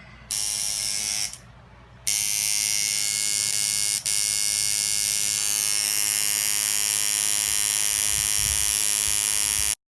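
Electric tattoo machine buzzing steadily: a run of about a second, a short pause, then a long continuous run that cuts off suddenly near the end.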